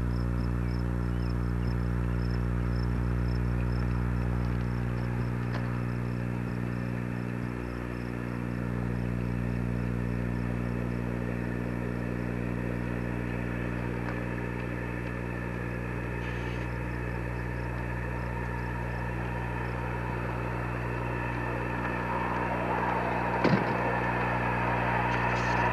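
Ride-on live steam miniature locomotive running along the track, getting louder near the end as it comes closer. A steady low hum runs underneath, and there is one sharp click near the end.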